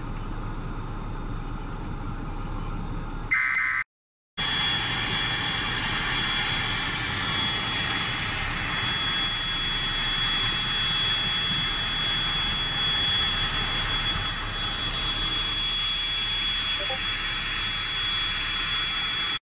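Steady machine noise: a hiss with one constant high whine over it, starting after a cut about four seconds in. Before the cut, only fainter steady background noise.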